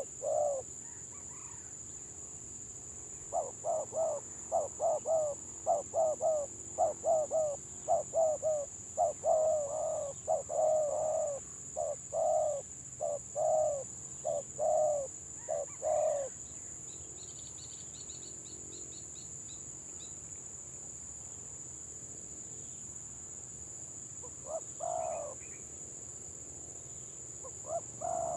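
Spotted doves (tekukur) cooing in the stuttering 'gagap' style: a long run of quick repeated coos for about thirteen seconds, then a pause and a few more coos near the end. A faint high chirping comes in briefly in the pause, over a steady high-pitched whine.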